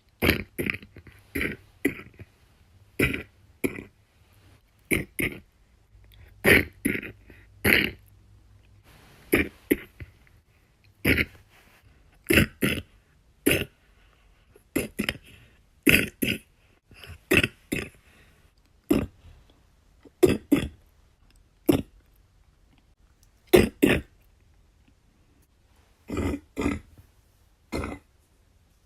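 A person coughing wet coughs over and over, singly or two at a time, a second or two apart.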